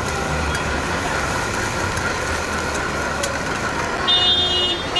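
Steady noise of a busy roadside food stall with traffic going by. A vehicle horn sounds briefly about four seconds in.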